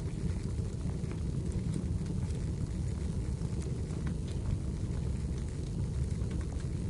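Wood fire burning in a fireplace: a steady low rumble with many small crackles and pops scattered throughout.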